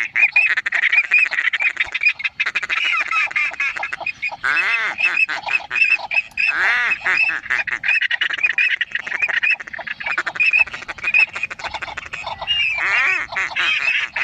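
Ducks calling continuously: a dense run of short, overlapping quacks with a few longer arching calls among them.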